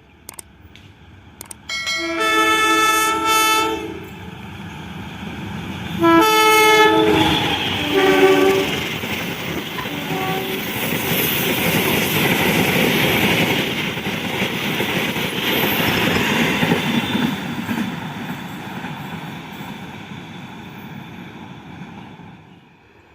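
Kamandaka train's locomotive horn sounding four blasts (two long blasts, then two short toots) as the train comes by, followed by the loud rumble and rail clatter of the train passing, which fades near the end.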